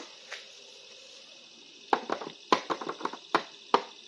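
Handling of a cardboard toy box with a clear plastic window: a quiet stretch, then from about two seconds in an irregular run of sharp clicks and taps as the box is picked up and handled.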